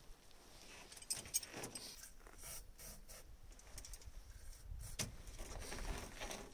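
Faint metallic clinks and rustling from hands working in the truck's engine bay, with scattered sharp clicks and short hissy patches.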